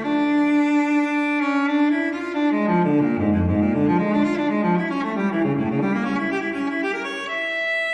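Solo cello playing slow, sad classical music in long held notes.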